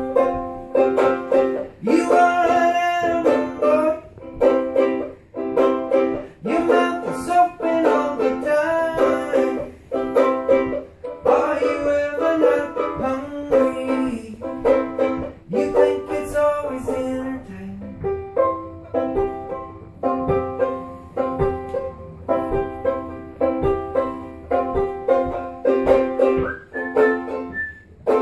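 Banjo-ukulele strummed in a steady rhythm of chords, with a man singing over it in a live acoustic performance.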